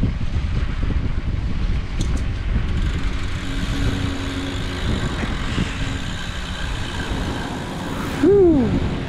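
Wind and road noise on a moving bicycle's action camera, with a motor vehicle running close by. Near the end comes a brief, louder cry that rises and then falls in pitch.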